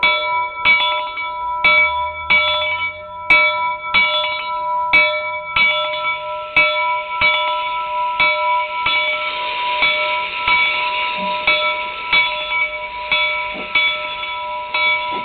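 Narrow-gauge steam locomotive's bell ringing steadily, struck a little under twice a second. A hiss builds underneath in the second half.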